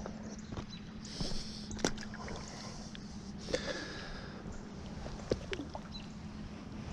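River water running along the bank, with a few brief knocks and clicks.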